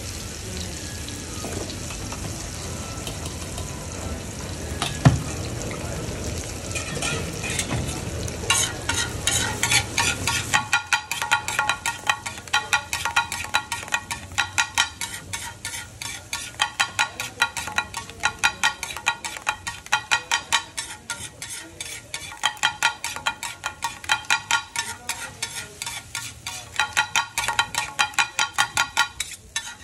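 Food sizzling on a large flat metal griddle, with one sharp clank; then, about a third of the way in, a fast run of ringing metal strikes as steel spatulas chop and mix the egg on the griddle, going in bursts with short pauses.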